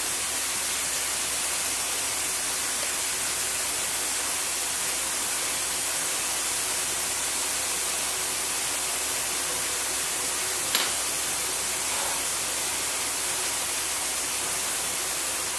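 Steady, bright hiss of recording noise with no other activity, and one small click about eleven seconds in.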